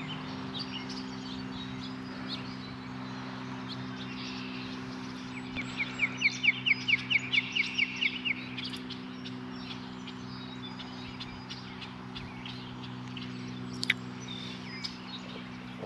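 Wild birds calling in the open, with scattered high chirps and, midway, one bird giving a fast run of about fifteen sharp notes. A steady low hum runs underneath.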